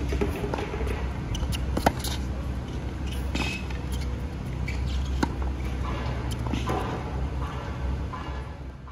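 Tennis rally on a hard court: a few sharp pops of racket strings striking the ball, loudest about two seconds and five seconds in, with short high squeaks of tennis shoes on the court surface. A steady low rumble lies under it all.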